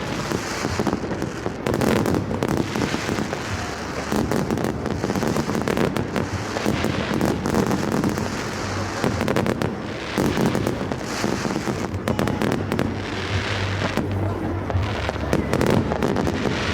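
Fireworks going off without a break: a dense, continuous run of bangs and crackles.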